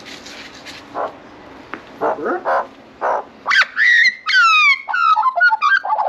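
Australian magpie carolling: from about halfway in, a loud run of gliding, mostly falling whistles and warbles, several notes at once.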